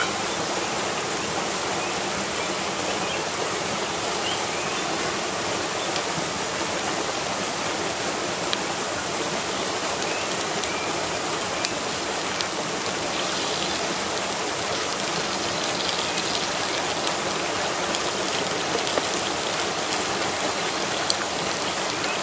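Small waterfall pouring into a rocky pool: a steady, even rush of falling and splashing water.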